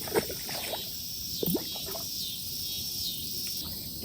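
A steady evening chorus of crickets and other insects, shrill and continuous, with two short sharper sounds cutting through it, one just after the start and one about a second and a half in.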